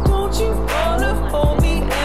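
Background music with a bass line, a gliding melody and drum hits.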